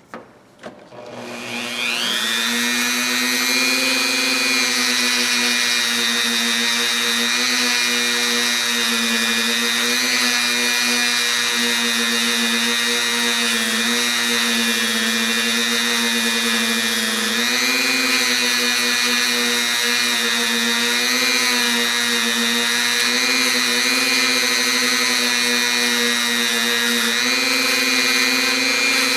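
Small high-speed electric power tool starting up and winding up to speed about a second and a half in, then running steadily, its whine shifting slightly in pitch a few times as it works on a metal ratchet part.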